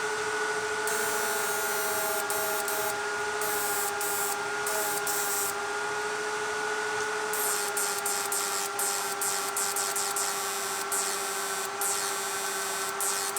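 Homemade 12 V inverter fishing machine running under a heavy lamp load: a steady electrical whine with higher overtones over a hiss. The hiss is broken by patches of crackling.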